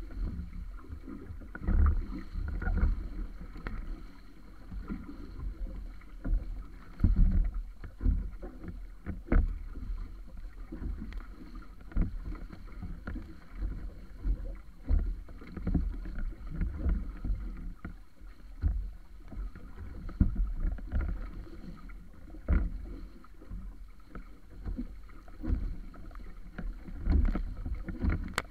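Water rushing and splashing against the hull and float of a wa'apa outrigger canoe under sail in choppy sea, coming in irregular surges as it meets the waves, with wind buffeting the microphone.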